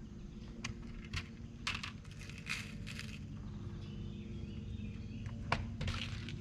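A steady low hum from a boat motor, with scattered sharp clicks and knocks over it.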